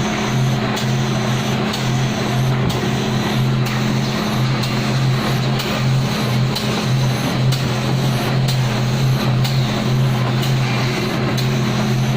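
Automatic folder gluer for corrugated cartons running: a steady motor hum with a sharp click roughly every second.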